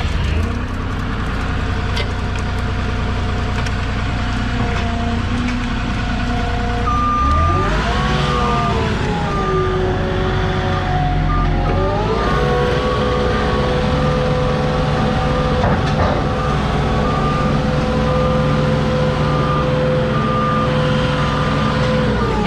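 Moffett truck-mounted forklift's engine running steadily as it drives, revving up about seven seconds in and again about twelve seconds in. From about seven seconds in its travel alarm beeps over the engine.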